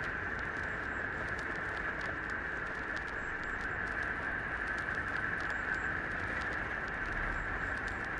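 Puppy suckling at its mother's teat: many quick, irregular wet clicks and smacks over a steady hiss.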